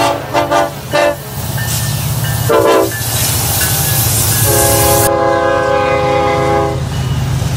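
Diesel locomotive air horn on a slow-moving Norfolk Southern freight train. It gives three quick blasts in the first second, another brief one about two and a half seconds in, then one long blast of about two seconds. Under the horn is the steady low rumble of the locomotives' diesel engines as they pass.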